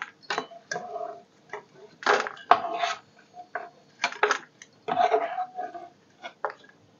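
Steel slotted spoon scraping and knocking against a nonstick kadhai as fried nuts and melon seeds are scooped out of ghee, in irregular strokes and clinks.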